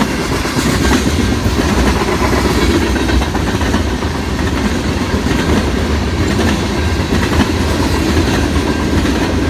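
A CN freight train's tank cars and covered hoppers rolling past at a steady speed: a continuous rumble with the clickety-clack of steel wheels over the rail joints.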